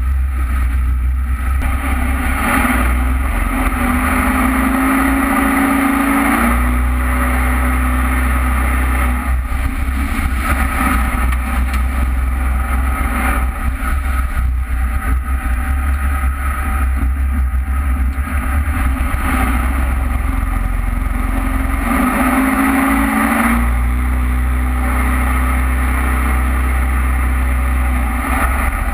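Jet boat running at speed, its engine a loud steady drone over the rush of wake water and wind. The engine note climbs briefly twice, a few seconds in and again near the end.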